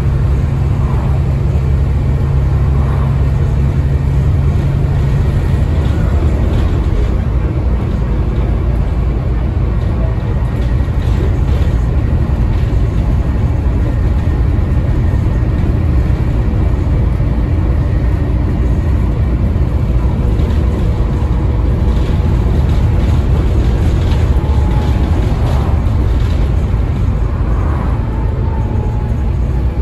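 Volvo B7TL double-decker bus under way, heard from the upper deck: its Volvo D7C diesel engine runs steadily under road and body noise, with a faint whine from the ZF Ecomat gearbox. A strong low engine note drops away about six seconds in.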